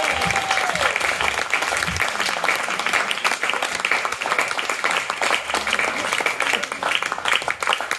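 A small congregation applauding with steady, dense clapping. A voice calls out briefly at the start.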